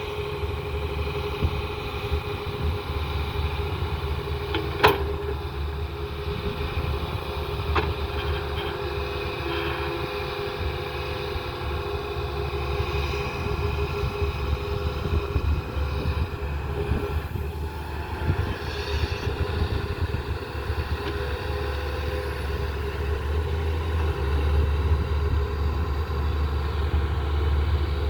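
Tata Hitachi excavator's diesel engine running steadily at work. There is a sharp knock about five seconds in and a smaller one near eight seconds, and the engine grows a little louder near the end.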